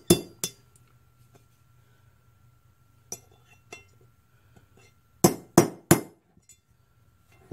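Small hammer striking a cast-iron IHC carburetor mixer body with sharp metal clinks, trying to knock a stuck bit of metal out of a passage. Two quick strikes come at the start, a few faint ticks about three seconds in, then three sharp strikes about a third of a second apart a little after five seconds.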